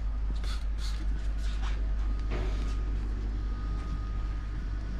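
Microfibre cloth wiping over car paint and glass: several short brushing swishes, mostly in the first three seconds, over a steady low hum.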